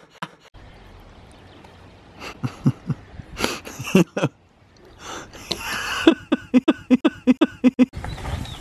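A man's coughing and throat noises, then a run of short, evenly spaced laughs, close to the microphone. Near the end a loud, steady rush of noise takes over.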